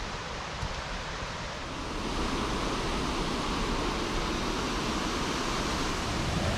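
Waterfall rushing, a steady even roar of falling water that grows a little louder about two seconds in.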